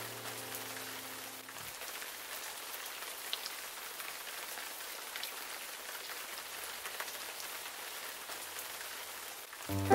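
Steady rain-like hiss with scattered small droplet ticks from a relaxing rain ambience track. A held chord of soft background music dies away about a second and a half in, and the music comes back in right at the end.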